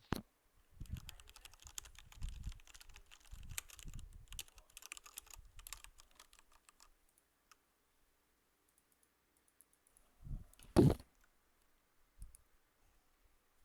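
Typing on a computer keyboard: a fast run of key clicks for about six seconds, thinning out to a few stray keystrokes. A single loud thump comes near the end.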